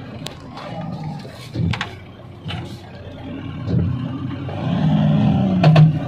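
Vehicle engine running, heard from inside a cab on a rough dirt logging road, with scattered sharp knocks and rattles from the bumpy ride. Over the last second and a half the engine note swells and rises a little, then drops back.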